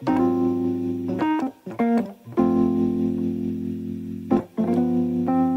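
Background music: held chords that change every second or so, broken by a few short pauses.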